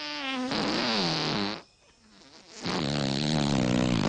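Two long, loud comic farts, each with a wavering, sliding pitch. The second starts about a second after the first stops.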